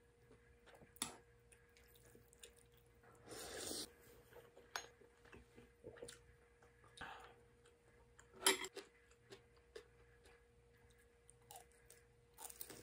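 Quiet eating sounds at a table: scattered clicks of chopsticks and dishes, a short noisy sip or slurp about three seconds in, and a sharp clink about eight seconds in, the loudest sound, over a faint steady hum.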